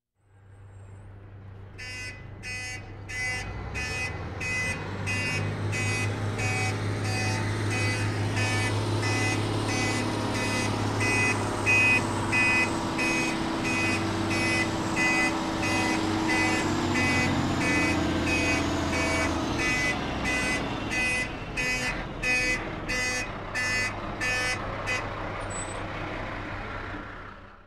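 Truck engine running with a low steady hum while its reversing alarm beeps about twice a second; the beeping stops shortly before the end as the engine carries on.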